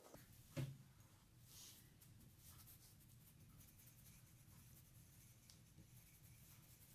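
Faint scratching of coloured pencils scribbling on paper, with a single light knock about half a second in.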